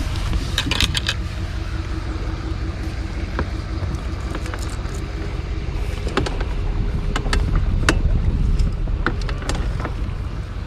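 Bass boat under way, a steady low motor rumble mixed with wind on the microphone, with scattered sharp rattles and clicks.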